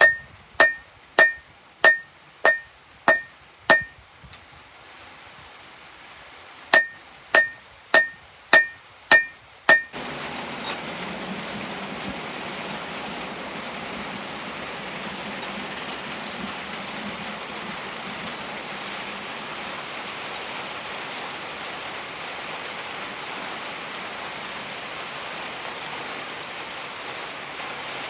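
Hand hammer striking red-hot damascus steel on an anvil, about one and a half blows a second with a bright ringing ping on each, in two runs of six or seven blows. From about ten seconds in, a steady sizzling hiss from the hot blade quenching in a drum of oil as it flares up.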